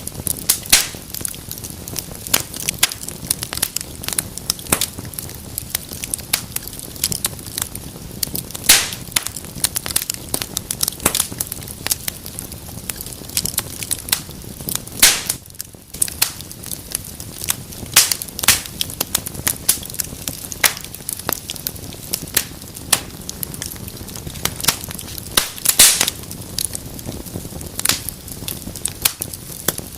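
Wood fire burning in a fireplace: irregular crackling and popping over a steady low hiss, with a few louder pops.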